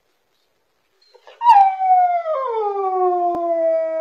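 A dog howling: one long howl starting about a second and a half in, its pitch sliding slowly downward, picked up by a pet camera's microphone.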